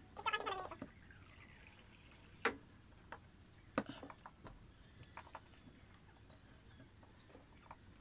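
Faint eating sounds while eating rice and grilled fish by hand: a few sharp clicks, the loudest about two and a half and nearly four seconds in, after a brief voice-like sound right at the start.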